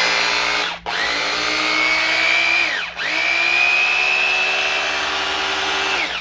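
Bosch GBH 2-24D rotary hammer's 820 W motor running on a test run after its burnt armature was replaced with a new one, running normally. It runs in three goes with a steady high whine: a short one, then two longer ones, with the whine sagging briefly as the trigger is let off in between.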